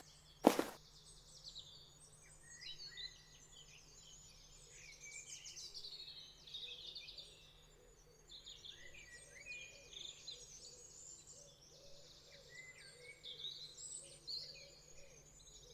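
Many small birds chirping and twittering at once, a busy bird chorus, with a single sharp click about half a second in.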